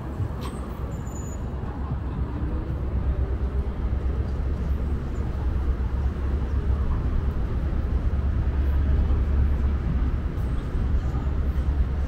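Steady low rumble of city traffic that slowly grows louder, with a few faint high bird chirps near the start.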